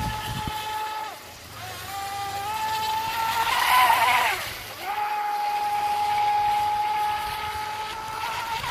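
High whine of a homemade RC rigger boat's electric motor and propeller running at speed. The pitch climbs about two seconds in, and the boat is loudest about four seconds in as it passes close with a hiss of spray, its pitch falling as it goes by, before the whine settles steady again.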